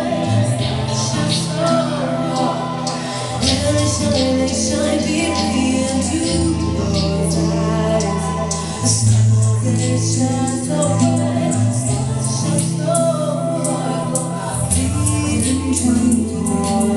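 Live music: a song with singing over held bass notes that change every second or two, with strumming or percussion throughout.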